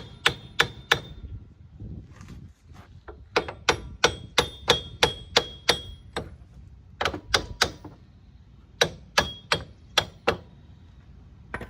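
Hammer striking the back side of a 2008 Pontiac G6's wheel hub assembly, metal on metal with a short ringing after each blow, to break the seized hub loose. The blows come in several quick runs of three to eight strikes, with short pauses between the runs.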